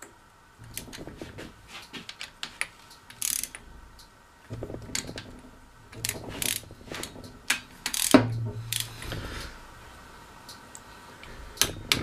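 Ratchet wrench clicking in short runs as bolts on a backhoe's shuttle-shift transmission housing are turned down and torqued, with scattered metal clinks and a few duller knocks.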